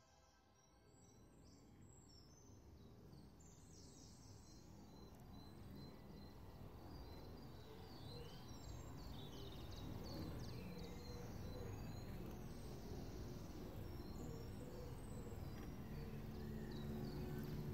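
Ambient soundscape in the background music: a faint low noise grows gradually louder, with many quick, high bird-like chirps over it.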